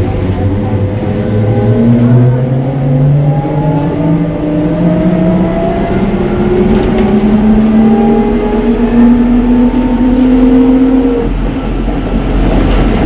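Ikarus 280T trolleybus accelerating: the electric traction motor's whine rises steadily in pitch over about eleven seconds, then cuts off as the power is shut off. Low running and road rumble continue underneath.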